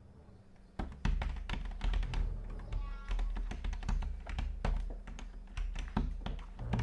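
Laptop keyboard typing, with irregular key taps starting about a second in, over a low, steady film-score music bed.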